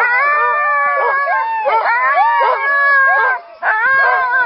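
A team of Siberian husky sled dogs howling and yelping together, many voices overlapping, with a short lull about three and a half seconds in.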